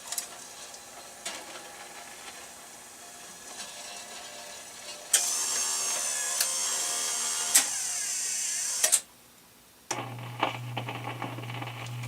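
Rock-Ola 443 jukebox mechanism running as it hunts for a selection: a quiet whir of motor and gears, then about five seconds in a louder whirring with a few clicks for about four seconds. It cuts off suddenly, and about a second later a steady low hum comes on with small clicks, just before the record plays.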